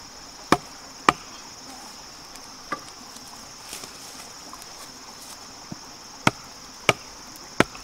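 Wooden stakes being pounded into the ground with a chunk of log: sharp wooden knocks, two about half a second apart near the start, a weaker one in the middle and three more near the end. Insects buzz steadily throughout.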